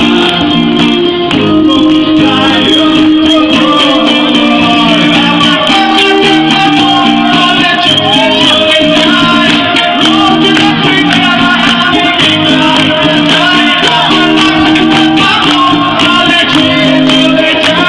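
Live band playing a song: guitars and keyboard, with a male voice singing at the microphone.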